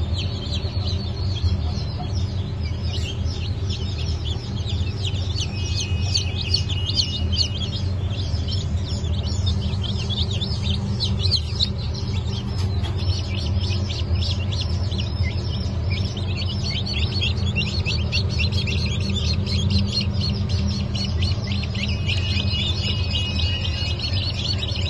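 A brood of newly hatched chicks peeping without pause, many overlapping high, thin cheeps, over a steady low hum.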